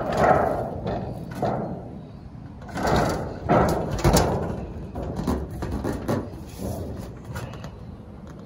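Thin painted sheet-steel shed panels rattling and flexing in a string of irregular clanks and wobbles as they are handled and stood up. The loudest clatters come at the start and about halfway through, over a low rumble of wind on the microphone.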